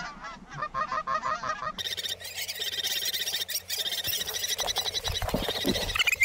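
Flock of Canada geese honking and clucking, many short calls overlapping; the calling grows denser and louder about two seconds in.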